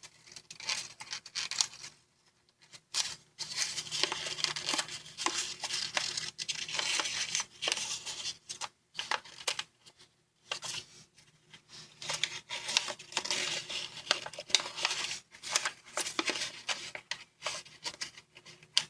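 Origami paper crinkling and rustling in bursts as fingers press and shape folds, with short pauses about two seconds in and about halfway through.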